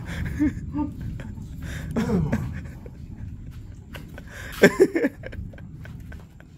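Men eating scalding-hot food in a rush, huffing and blowing to cool their mouths, with short grunts and a louder vocal exclamation about two-thirds of the way through.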